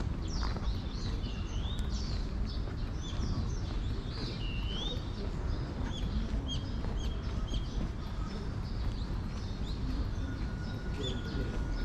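Small birds chirping over and over, with a few swooping calls among the short chirps, over a steady low rumble of outdoor background noise.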